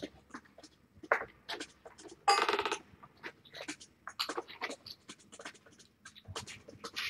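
Kittens playing with a feather wand toy on carpet: scattered light taps and clicks, with one short buzzy rasp about two and a half seconds in.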